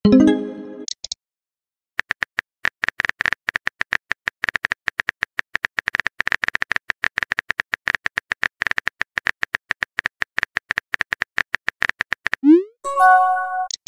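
Phone-keyboard typing clicks from a texting-story app, a rapid uneven patter of taps. At the start and again near the end a message-sent sound plays: a short rising whoosh, then a brief chime.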